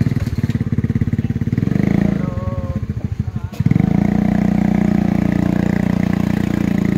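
Motorcycle engine running with an even low pulse, then rising in speed and level about three and a half seconds in as the bike pulls away and keeps going.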